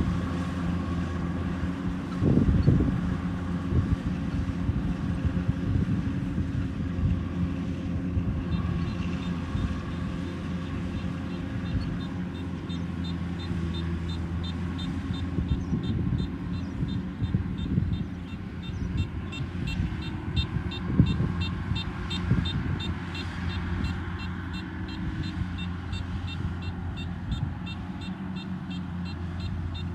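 Kubota rice harvester's diesel engine running steadily under load, with a few louder knocks. From about eight seconds in, a fast, even series of high-pitched pips runs alongside it.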